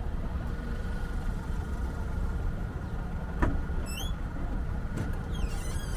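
Steady low vehicle rumble with a faint steady whine on top, a single sharp knock about three and a half seconds in, and a few short high chirps soon after and near the end.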